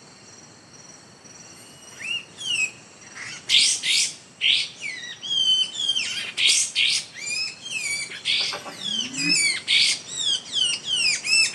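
Songbirds chirping and calling: quick, sweeping high notes that begin about two seconds in and then come thick and fast, over a steady high insect drone.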